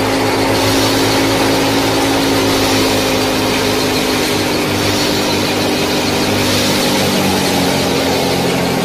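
A small motor running steadily with a constant hum.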